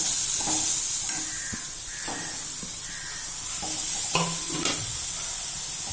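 Grated beetroot, carrot and beans sizzling in hot oil in a pan while being stirred, with a steady frying hiss and occasional scrapes and knocks of the spatula against the pan.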